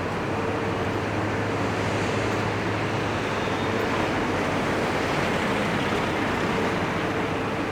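Steady city street background noise: a continuous hiss with a constant low hum and a faint steady tone above it that comes and goes.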